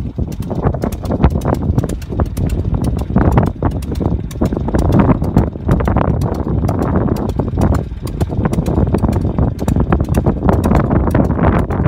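Wind buffeting the phone's microphone: a loud, irregular rumble with scattered crackles.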